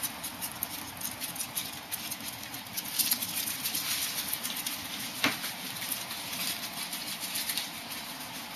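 Ferret's claws pattering and skittering on a hardwood floor: a run of light, irregular clicks, with a couple of sharper knocks about three and about five seconds in.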